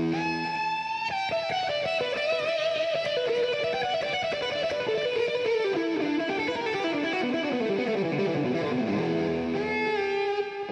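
Electric guitar music with fast lead notes; about six seconds in, a run of notes falls steadily in pitch, then climbs back near the end.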